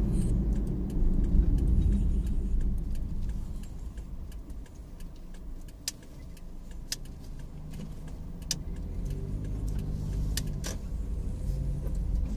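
Mazda Scrum kei van driving, heard from inside the cabin: engine and road rumble that eases off after a few seconds as the van slows, then a quieter, steadier engine note at low speed. Occasional small clicks and rattles are heard in the cabin.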